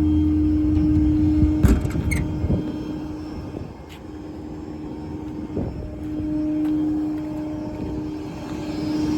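Idling 6.7 Power Stroke diesel of a Ford F550 with a steady hum. A few sharp clicks or knocks come about two seconds in and again near four seconds, and the running sound drops for a while in the middle before it comes back.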